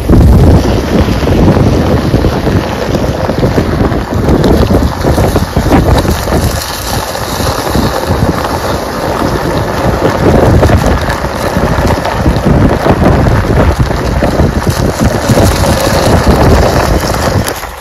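Loud wind noise buffeting the microphone, a rough, gusting rumble and hiss that starts abruptly and rises and falls unevenly.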